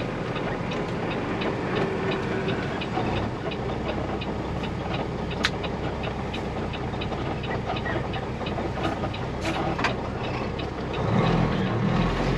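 Semi truck's diesel engine running under road noise, heard from inside the cab, with a steady ticking a few times a second over it. The engine gets louder near the end.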